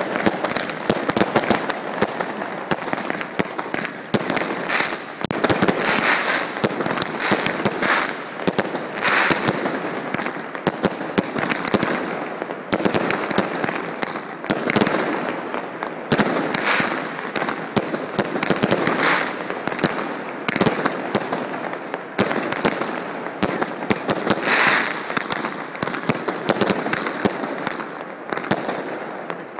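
Professional fireworks display: a dense, unbroken string of bangs and crackling shell bursts, with louder clusters every second or two.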